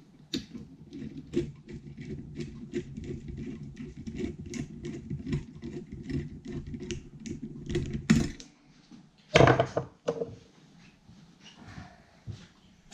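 Light metal clicks and rattles, two or three a second, as a clamp holding a welded flex shaft is loosened and the shaft handled, over a steady electrical hum. The hum cuts off about eight seconds in, and a louder clank follows about a second later.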